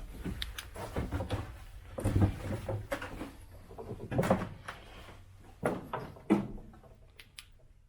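Irregular knocks, scuffs and scrapes of someone moving on foot through an underground air raid shelter tunnel: footsteps and handling noise, about one a second, fading toward the end.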